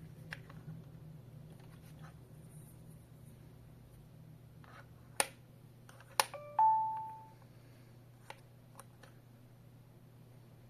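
Two sharp clicks as a wireless door/window contact sensor is triggered, then a single beep-chime from the STANIOT alarm panel that fades over about a second, confirming that the sensor has paired.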